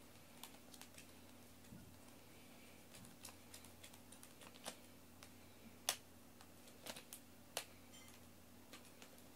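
Near silence: a faint steady room hum with about a dozen small, irregular clicks, the sharpest about six seconds in.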